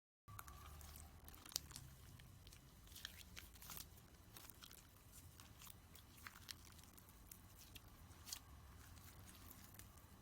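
Faint sticky clicks and small pops of glitter glue slime being squeezed and stretched by hand, over a low hum.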